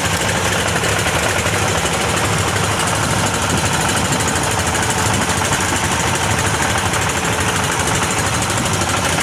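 A wooden fishing boat's inboard diesel engine running steadily under way, with the wash of water along the hull.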